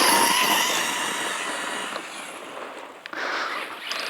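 Remote-control fox target's battery-powered electric drive whirring as it runs over the ground, fading about two seconds in, then a second shorter burst about three seconds in.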